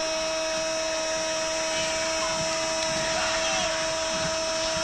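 Radio football commentator's drawn-out goal cry, a single 'gol' held at one high pitch without a break, over a haze of background noise.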